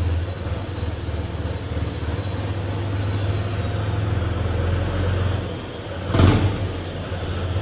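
Tractor diesel engine idling steadily, a low even hum, with a short louder burst about six seconds in.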